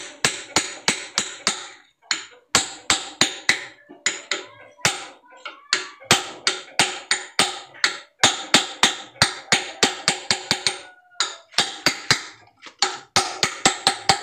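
Rapid hammer taps on a tool against the steel housing of a car ball joint, about four or five a second in runs with short pauses, each blow ringing briefly. The strikes are peeling back the crimped lip that holds the ball joint's cap so the joint can be opened.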